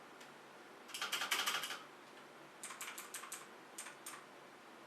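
Keys being typed on a LingYi mechanical keyboard with Outemu switches: three quick runs of sharp keystrokes, about a second in, near the middle, and a short one near the end.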